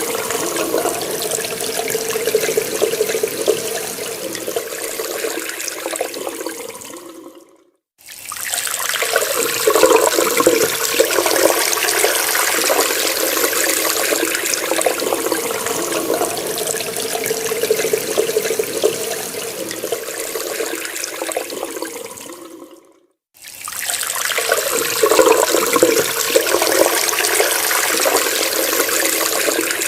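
Water running from a tap in a steady splashing stream. It fades out to a brief silence about 8 seconds in and again about 23 seconds in, then starts again at full strength each time.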